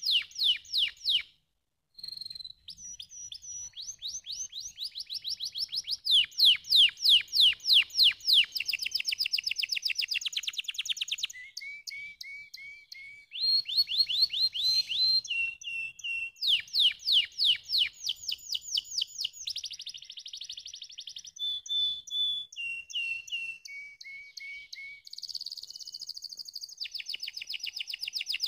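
Domestic canary singing a long song of rapid trills, each phrase a fast run of repeated notes at a different pitch, with a brief pause about a second in.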